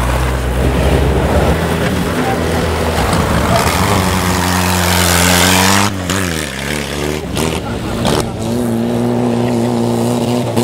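Vintage hot rod engines running and accelerating on a dirt track. One engine revs up steadily for about two seconds; after an abrupt change its pitch dips and climbs again, then it settles into a steady run.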